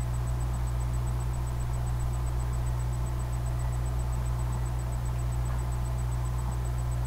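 Steady low hum with a faint hiss, unchanging throughout: background noise of the recording, with no other sound.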